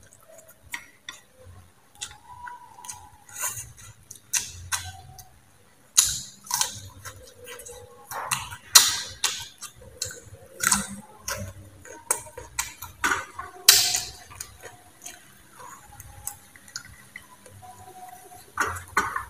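Close-up eating sounds: chewing and lip-smacking, with bites into a slice of mango, heard as irregular wet clicks and smacks that grow busier about a third of the way in.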